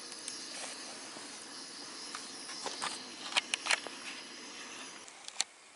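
Wood campfire burning: a steady hiss with sharp crackles and pops, most of them bunched together a little past halfway.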